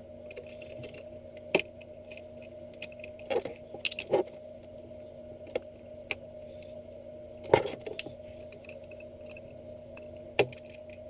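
Scattered sharp metallic clicks and clinks of small brass clock parts and tools being handled as wheel pivots are fitted into the plates of a fusee clock movement, irregular and a second or more apart, the loudest a little past the middle. A steady low hum runs underneath.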